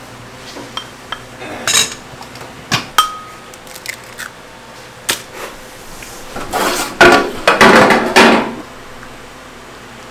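Kitchen clatter of bowls and metal utensils knocking and clinking against pots, with a short metallic ring about three seconds in and a dense run of loud clanks about two-thirds of the way through.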